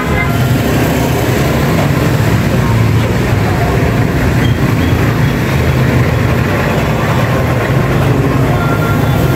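Steady low mechanical rumble, like running engines or machinery, holding an even level with no distinct knocks or clicks.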